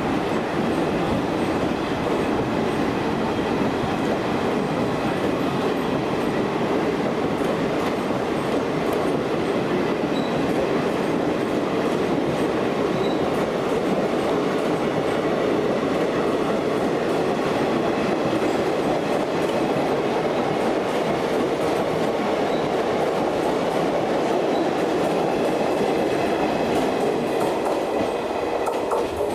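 ICF passenger coaches rolling steadily past on the near track: a continuous rumble with the wheels clattering over rail joints and faint high-pitched tones above it.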